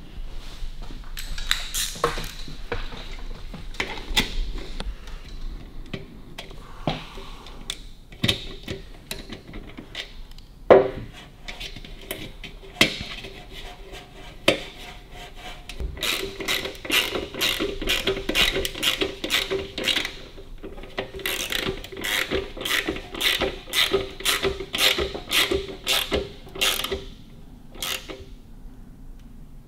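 Ratchet spanner clicking in quick, regular strokes as the fixing nuts of a sidecar mudguard lamp are tightened down, through most of the second half. Before that, scattered taps and knocks of metal parts being handled, with one sharp knock about a third of the way in.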